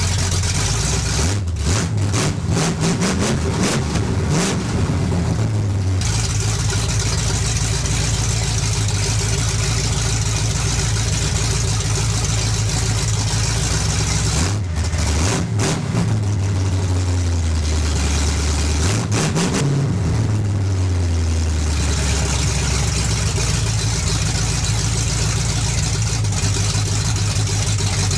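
A 454 cubic-inch big-block V8 in a 1965 Chevy C10 pickup is idling while its throttle is blipped: several quick revs in the first few seconds, then two longer revs about halfway through, settling back to a steady idle between them. It is running crisp, with its carburettor freshly tuned and its manifold vacuum leaks fixed.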